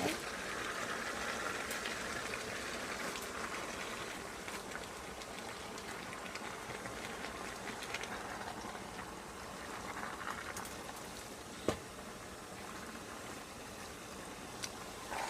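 Tomato-and-egg sauce with noodles sizzling steadily in a pan, with a single sharp knock about three-quarters of the way through.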